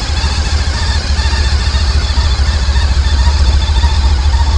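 2007 Honda ST1300 motorcycle's V4 engine idling steadily with a deep, low sound. The engine is stock and unmodified.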